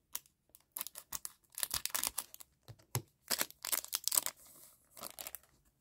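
Foil wrapper of a 2014-15 Upper Deck Overtime hockey card pack being snipped open with scissors and crinkled as it is pulled apart: a run of irregular sharp crackles and rustles.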